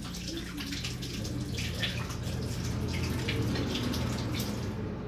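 Kitchen tap running with water splashing as hands are washed under it; the splashing dies down near the end.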